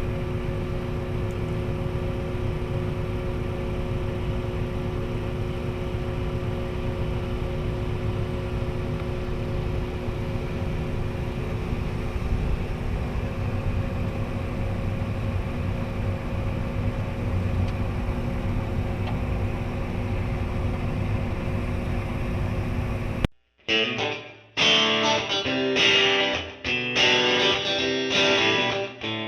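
Steady engine drone heard from inside a farm vehicle's cab during corn harvest, with a few constant tones over a low rumble. About 23 seconds in it cuts off suddenly to electric guitar music.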